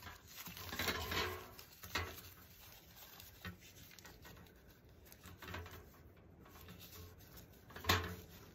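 Thin plastic tablecloth strips crinkling and rustling as they are handled and knotted onto a wire wreath frame, with a few sharper crinkles about a second in, at two seconds, and near the end.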